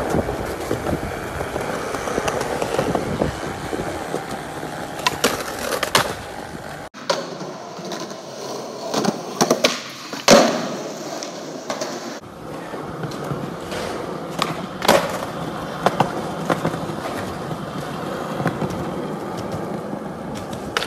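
Skateboard wheels rolling on concrete, broken by the sharp clacks of the board popping and landing tricks, several times. The loudest smack comes about ten seconds in.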